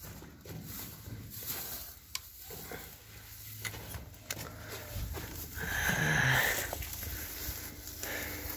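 Footsteps and clothing and bag rustle of people walking out of a rock cave, with scattered short knocks and scuffs. About six seconds in there is a louder breathy, rasping sound lasting around a second.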